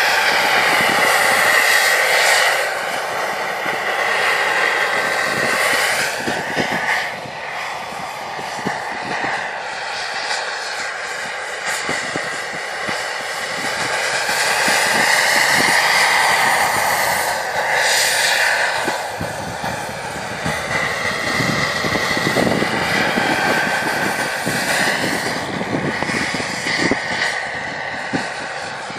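Radio-controlled model helicopter (Mobb PowerCat) flying with its JetCat PHT3 model turbine engine and rotor running: a steady turbine whine and rotor noise. It swells and fades, and its pitch bends up and down as the helicopter flies past, loudest near the start and again about halfway through.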